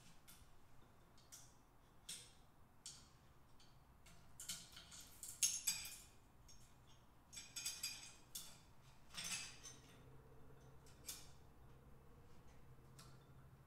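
Faint, scattered metallic clicks and light clinks of engine parts being handled: the cam chain and a flexible magnetic pickup tool knock against the aluminium cylinder block as it is held over the pistons of a Honda CBX engine. The loudest clatter comes about five and a half seconds in.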